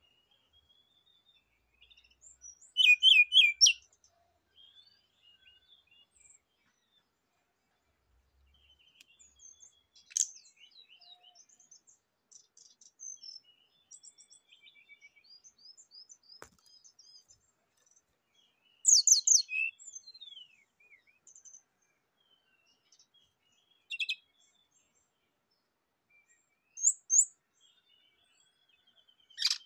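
Brown-chested jungle flycatcher singing in short, separated phrases of rapid high notes, with faint twittering between them. The loudest phrases come about three seconds in and again past the middle.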